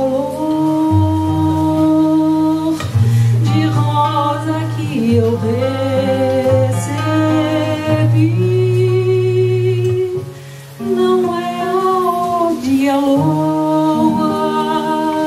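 A woman singing a slow song over a nylon-string acoustic guitar, her held notes wavering in pitch above plucked bass notes, with a short pause about ten seconds in.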